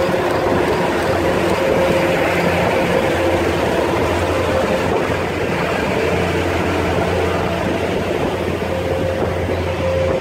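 Network Rail rail grinding train passing close by at low speed, its diesel engines running with a steady hum over wheel and rail noise. The last vehicle goes by near the end.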